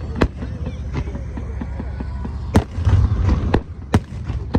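Fireworks display: sharp bangs of shells bursting, about five of them, over a steady low rumble of other bursts. The rumble swells loudest about three seconds in.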